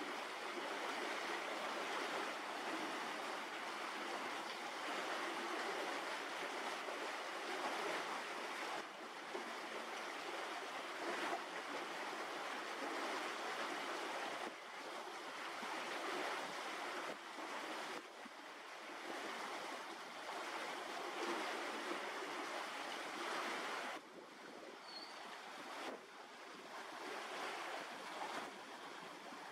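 Steady rushing, hiss-like noise with no clear pitch, dropping abruptly in level several times.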